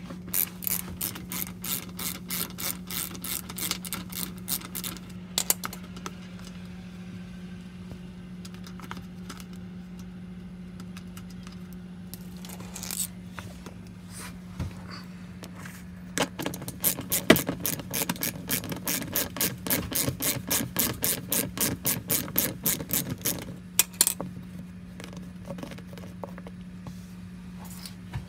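Ratchet wrench with an 8 mm socket clicking in quick runs of a few clicks a second while the bolts of the plastic underbody cover are unscrewed: one run at the start and a longer one in the second half. A steady low hum runs underneath.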